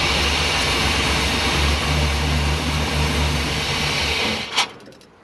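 Chevrolet 350 V8 with throttle-body injection catching and running for about four seconds on hand-poured fuel, then dying out, with a sharp snap just after. It only runs on what is poured in: the electric fuel pump is most likely bad.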